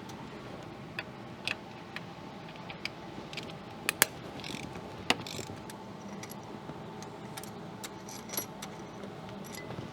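Irregular metallic clicks and clinks of hand tools and engine parts being handled during a cylinder-head teardown, with the sharpest knocks about four and five seconds in, over a steady low hum.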